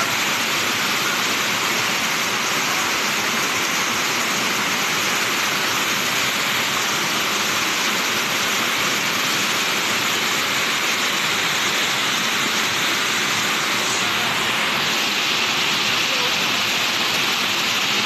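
Waterfall cascading over a broad rock face: a steady rushing of falling water.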